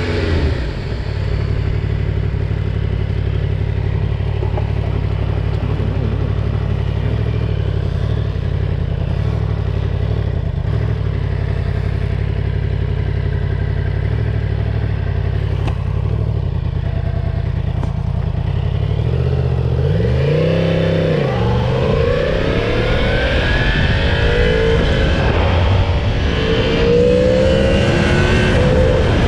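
Yamaha MT-10's crossplane inline-four on its stock exhaust, running steadily at low revs, then a quick rise and fall in revs about twenty seconds in. Near the end it accelerates, the revs climbing again and again as it pulls through the gears.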